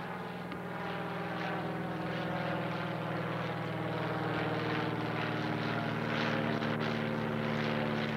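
Small single-engine propeller airplane flying overhead: a steady engine drone that grows a little louder.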